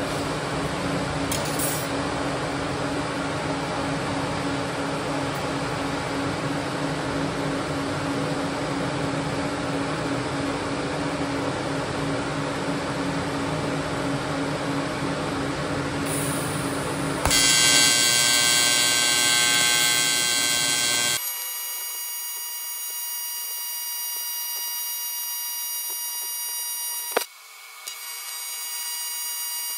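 Steady background hum, then about 17 seconds in the arc of an AC TIG welder (a PrimeWeld inverter) strikes on aluminum: a sudden loud start, then a steady high-pitched buzz of even tones that holds to the end, with one sharp click near the end.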